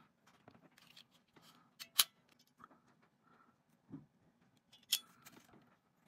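Two sharp metallic clicks about three seconds apart, the first the louder, with a duller knock between them and light rustling, as a crimping tool and a small metal wire terminal are handled.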